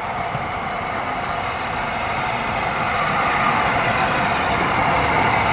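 Class A4 steam locomotive 60007 approaching with its train, a steady rushing sound that grows louder as it nears.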